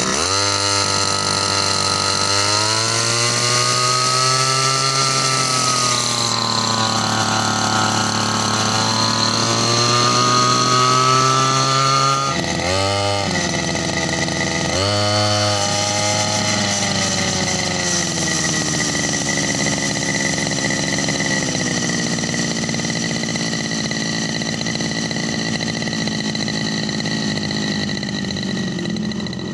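Ryu brush cutter's small petrol engine running just after a pull start, its pitch wandering up and down at first. About twelve seconds in, it dips sharply twice and picks up again, then settles into a steady idle.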